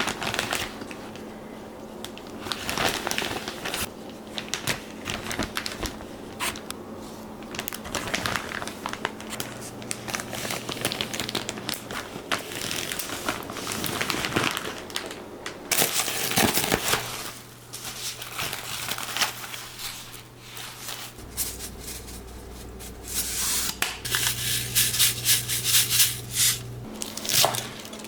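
Food-preparation handling noises: crinkling and rustling with scattered clicks and taps, busiest about two-thirds of the way in and near the end.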